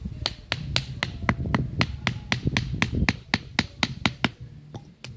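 A quick, even series of sharp taps, about four a second, stopping about four seconds in, with a few more near the end.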